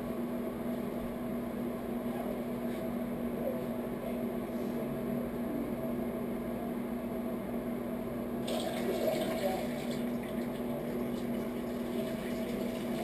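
A man urinating into a toilet bowl: a steady stream of liquid splashing into water, over a steady low hum.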